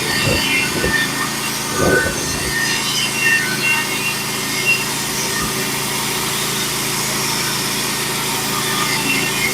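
Norwood HD36v2 portable band sawmill running steadily while its band blade cuts through a pitch pine log, with a few knocks in the first two seconds.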